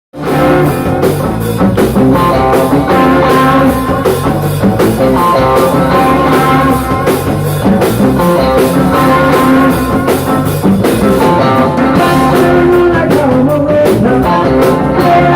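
Live rock band playing loudly: electric guitars, bass and drum kit.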